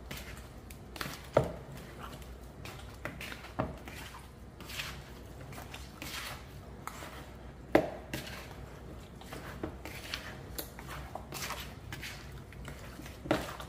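Hands massaging jerk marinade into raw oxtails: wet squishing and slapping of the meat, broken by irregular sharp knocks of meat and bone against the dish. The loudest knocks come about a second and a half in, near eight seconds, and near the end.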